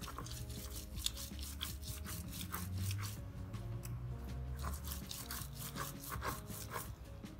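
Stone roller ground back and forth over a flat grinding stone (a Sri Lankan miris gala), crushing a wet spice paste: a series of uneven, gritty rubbing strokes of stone on stone.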